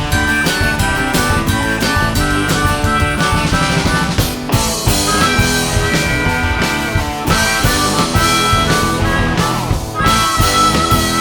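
Live rock band playing an instrumental passage with drum kit, bass and electric guitar, a harmonica playing long held notes over it.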